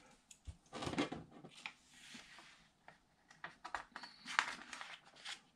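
Pages of a printed catalogue being handled and turned: soft paper rustling with a few crisp clicks, loudest about a second in and again near the end.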